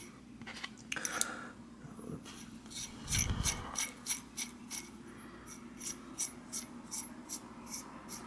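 Steel lock nut being spun by hand along a threaded bicycle axle: a run of light, sharp metallic ticks, about three a second, as it turns on the threads. A duller low bump of handling about three seconds in is the loudest moment.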